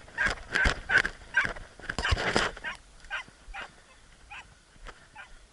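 Hunting dog barking and yelping in quick succession, then fewer, fainter yelps spaced about half a second apart after about two and a half seconds.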